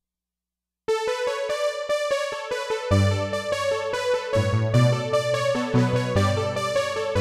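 Roland D-50 synthesizer playing one of its factory preset sounds. After about a second of silence a quick, repeated figure of high notes starts suddenly, and about three seconds in low left-hand notes join it.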